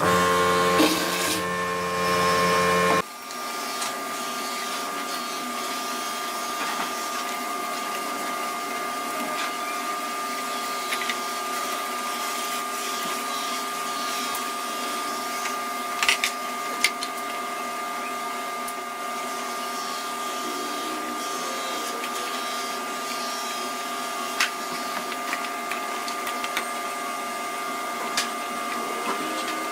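Steady whine of a small electric motor, with a few sharp clicks. A louder, deeper machine sound fills the first three seconds and cuts off abruptly.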